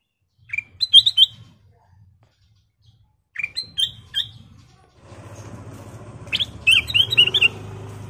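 Ruby-throated bulbul (kutilang emas) singing three short phrases of quick whistled notes a few seconds apart, each opening with a rising note. A steady low hum comes in about five seconds in, under the last phrase.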